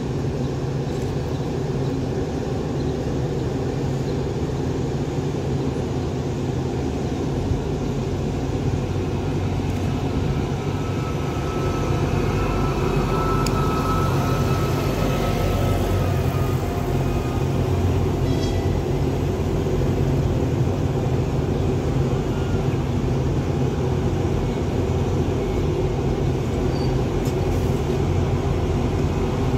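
Pesa Link 730ML diesel multiple unit pulling in alongside the platform, its engines running with a steady low hum that grows louder about twelve seconds in as it comes close and draws level.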